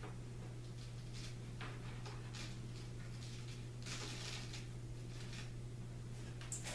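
Faint scraping and light clatter of dried butternut squash pieces being scraped off a plastic food-dehydrator tray, a little busier about four seconds in, over a steady low hum.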